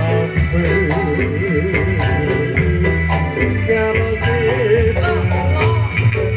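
Dolalak music, Central Javanese folk music: a singer's wavering, ornamented melody over frame drums and a steady low drum beat with regular jingling percussion strokes.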